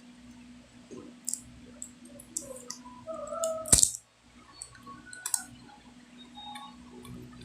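Small clicks and taps of repair tools and plastic phone parts being handled during a smartphone disassembly, with a few brief squeaks and one sharp, loud click about four seconds in, over a steady low hum.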